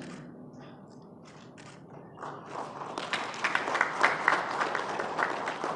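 Audience applause: a few scattered claps, then many hands clapping together from about two seconds in.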